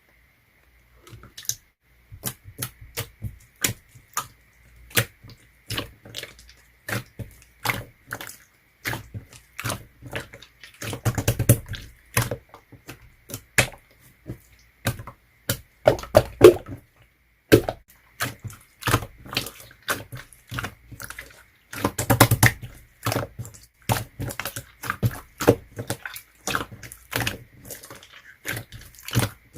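Clear slime being squeezed and poked by hand, making irregular sticky clicks and pops. There are thicker runs of crackling about eleven, sixteen and twenty-two seconds in.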